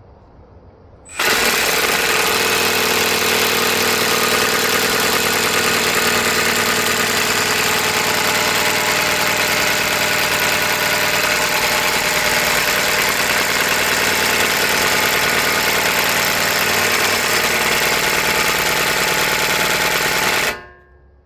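A loud motor-driven machine starts abruptly about a second in, runs steadily for about nineteen seconds and then cuts off sharply.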